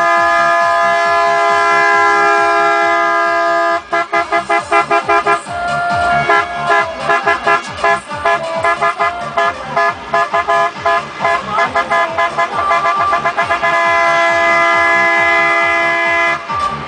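Truck air horns sounding a long held chord, then a rapid run of short toots about four seconds in, followed by a string of short changing notes, and a long held chord again near the end.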